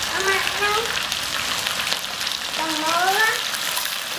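Meat patties sizzling steadily in hot oil in a pan. A high-pitched voice sounds briefly near the start and again about three seconds in.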